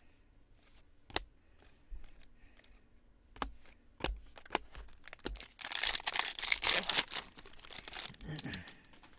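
Chrome trading cards handled and flipped, with scattered light clicks, then a loud crinkly tearing for about two seconds, starting near the sixth second, as a foil card pack is ripped open.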